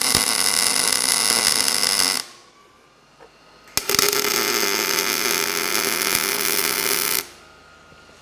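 Gas-shielded MIG welding arc on steel tubing, laying tack welds. It runs steadily for about two seconds and stops. It strikes again about four seconds in and runs until about seven seconds in.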